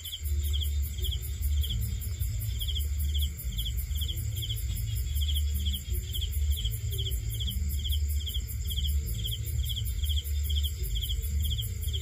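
Crickets chirping in a steady, even rhythm of about two to three short high chirps a second, over a low rumble.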